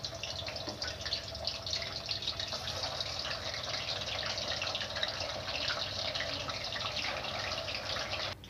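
Paneer cubes sizzling and crackling as they fry in hot mustard oil in a kadhai; the sizzle cuts off suddenly near the end.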